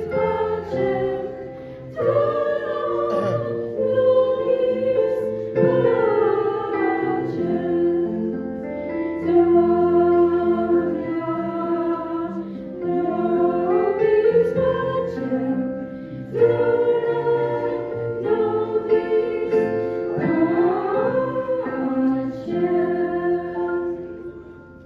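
A group of girls singing together into microphones, amplified through stage speakers, several voices holding long notes at once in phrases that break off every few seconds.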